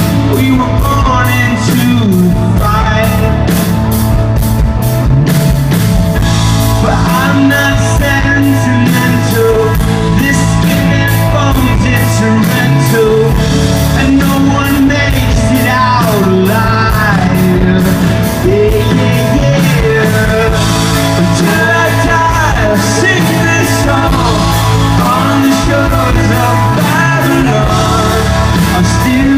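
Live rock band playing loudly with a singer over guitars and drums.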